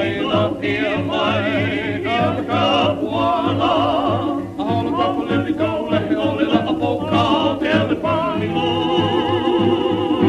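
Background music: a singing voice with strong vibrato over a steady, pulsing bass beat.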